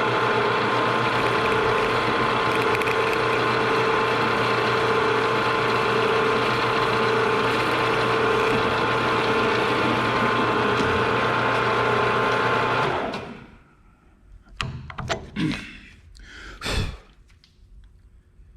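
Enco round column mill-drill running steadily while drilling a 1/8 inch hole through a steel knob; about 13 seconds in the motor is switched off and spins down. A few short knocks follow.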